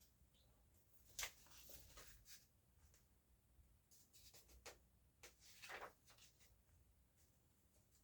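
Faint paper rustles and light handling sounds from a book being leafed through, in several short bursts with quiet gaps between.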